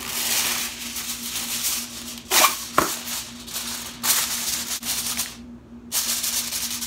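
Aluminium foil crinkling as it is pulled from its box and pressed and crimped over the rim of a glass baking dish, in several stretches of crackling with a couple of sharp clicks about two and a half seconds in.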